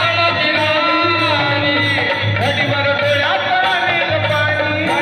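Marathi devotional song (bhajan): a man singing over a harmonium, with mridang drum and brass hand cymbals (taal) keeping a steady beat. The cymbals strike about one and a half times a second.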